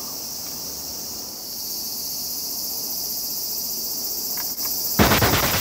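Steady high-pitched chorus of cicadas. About five seconds in, a brief loud scraping knock as a long pole is pushed against the tree trunk at a hollow.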